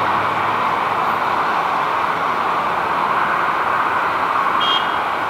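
Airbus A321neo's CFM LEAP-1A turbofan engines heard as a steady, distant jet roar as the airliner climbs away after takeoff.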